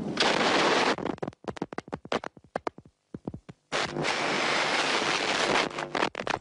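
Gunfire during an assassination attack in a hall: a long sustained burst of fire, then a rapid string of single sharp shots for about three seconds, then a second long burst and a few more shots near the end.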